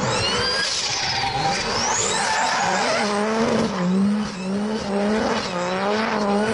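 Audi drift car's engine held at high revs, its pitch rising and falling about once a second with the throttle, as the tyres spin and screech through a smoky donut. A high tyre squeal glides up and down over the first two seconds or so.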